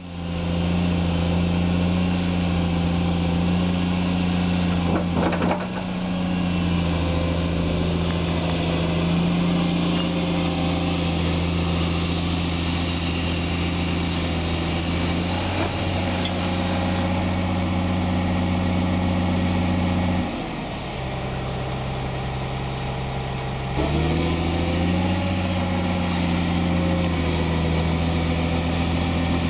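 Caterpillar 345 long-reach excavator's diesel engine running steadily as the machine digs, with a few knocks about five seconds in. The engine note drops for about three seconds past the two-thirds mark, then picks back up.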